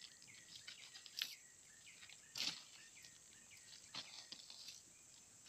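Faint outdoor ambience: birds chirping in quick repeated calls over a steady high-pitched insect drone, with a few sharp clicks, the loudest about two and a half seconds in.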